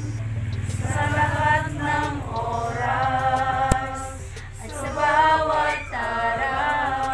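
A small group of people singing a Tagalog worship song together, unaccompanied. A single sharp click comes about halfway through.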